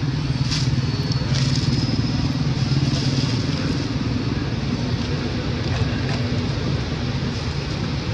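An engine running steadily at a constant speed, with a low, even hum and a few faint high ticks.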